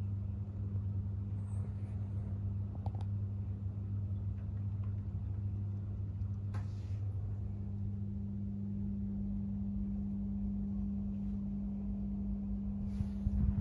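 Steady low electrical hum, as of a running appliance or small motor, with a couple of faint clicks.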